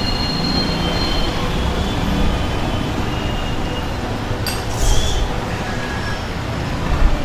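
Steady low background rumble, with one sharp click about four and a half seconds in.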